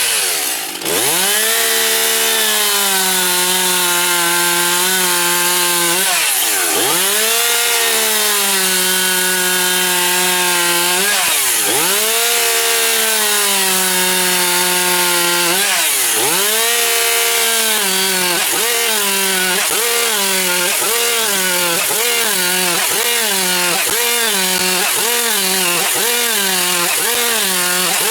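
Two-stroke chainsaw held sideways, slicing thin discs off a log. The engine runs at high revs and sags in pitch under each cut, then recovers: a few longer cuts at first, then quick cuts about one a second in the second half.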